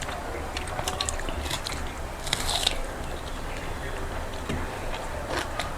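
Close-up eating sounds: a person biting and crunching raw onion while chewing, with a louder crunch about two and a half seconds in.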